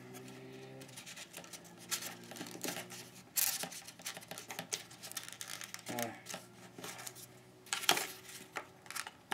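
Foam toy biplane parts being handled and fitted together: scattered light clicks and taps with soft rustling of foam and plastic.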